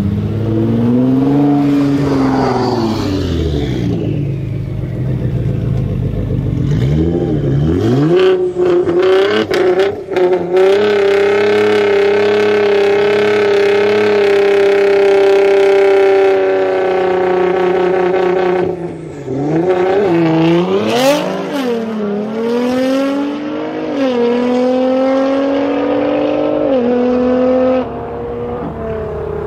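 Nissan GT-R R35's twin-turbo V6 engine revving hard. Its pitch sweeps up and down, holds high and steady for several seconds, then climbs in steps through gear changes as it accelerates away. A few sharp cracks sound among the revs.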